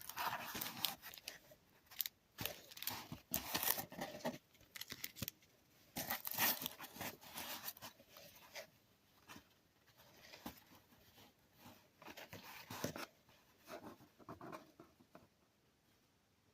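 Unboxing sounds: packaging and paper being handled and opened by hand, in irregular bursts of rustling noise with sharp clicks. The handling grows sparse and quieter over the last few seconds.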